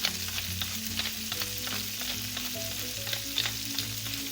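Garlic and onions sizzling in rendered pork fat in a pan: a steady frying hiss with frequent small crackles.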